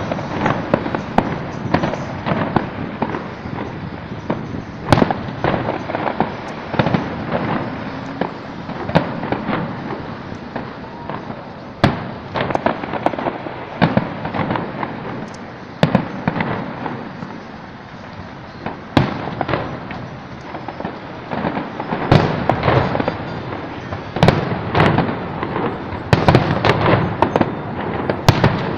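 Aerial fireworks going off in a steady stream of bangs and cracks over continuous crackling. The bangs come thickest and loudest near the end.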